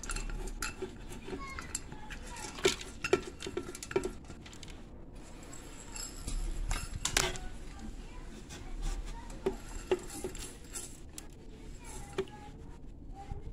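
Scattered light clinks and knocks of a utensil and spices against a blender jar as ingredients are added, the sharpest about seven seconds in.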